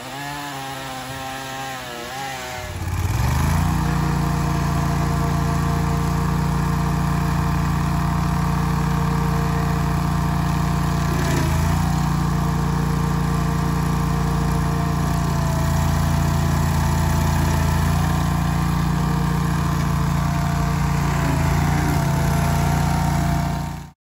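A chainsaw's engine revving up and down for about three seconds, then a tracked stump grinder's engine running at a steady high speed while it grinds out a tree stump, cutting off abruptly at the end.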